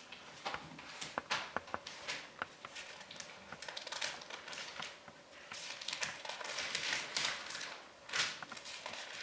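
Thin Bible pages being leafed through by hand: a run of crisp papery rustles and small flicks, with the loudest page turn near the end.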